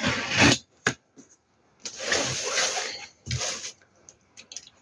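Packaging being handled during an unboxing: a short burst of rustling, a knock, then about a second of rustling and scraping and another short burst, with a few faint ticks near the end.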